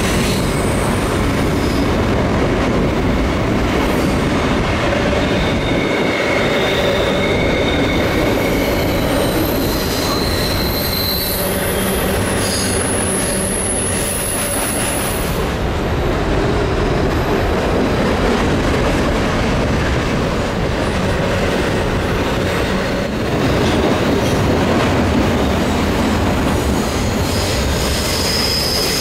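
CN freight train of loaded hopper cars rolling past in a steady rumble of wheels on rail, with high-pitched wheel flange squeals that come and go, most of them in the first half and one more near the end. A mid-train CN diesel locomotive passes about halfway through.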